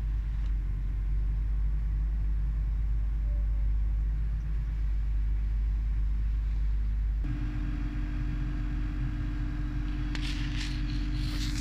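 Steady low rumble heard inside a GWR Class 800 train coach. About seven seconds in, a steady hum sets in on top of it. Near the end there is some brief rustling.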